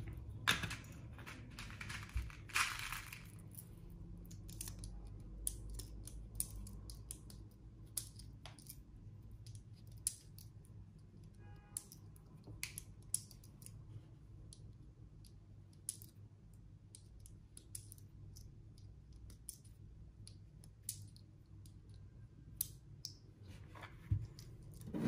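6 mm 0.20 g BBs being pressed one at a time into the magazine of an Umarex H&K VP9 gas blowback airsoft pistol: small, scattered clicks, with a louder knock near the end.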